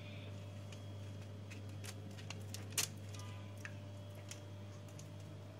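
Scattered light clicks and taps of a pastry brush against a glass bowl of egg wash and on dough balls on a baking tray, the sharpest tap just under three seconds in, over a steady low hum.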